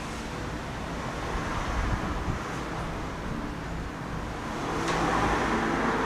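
Street traffic noise: a steady rumble of road vehicles, swelling louder about five seconds in.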